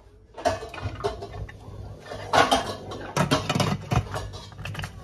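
Stainless steel steamer pot of chestnuts clattering as it is handled and covered with its glass lid: a string of knocks and rattles, loudest a little before halfway and again about two-thirds through.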